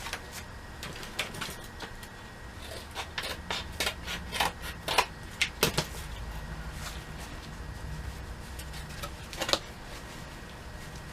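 Scattered light clicks and taps of hands handling craft materials, over a low steady hum.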